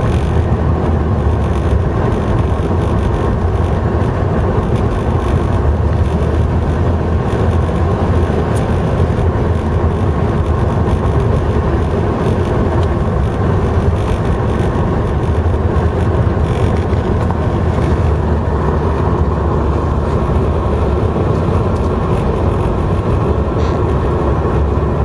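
A moving car's steady road noise, with a heavy low rumble that runs on unbroken.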